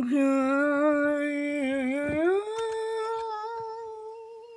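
A person humming one long note that rises in pitch about two seconds in, then holds at the higher pitch and slowly fades. There are a couple of faint clicks near the rise.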